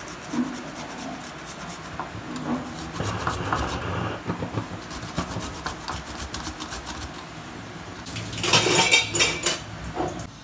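Handheld stainless-steel grater rasping in quick repeated strokes as food is grated into a plastic bowl, louder and denser for about a second and a half near the end.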